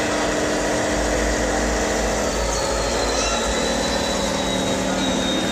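Radio-controlled scale Scania T620 model truck driving, a steady engine-like drone with a faint high whine that slowly falls in pitch.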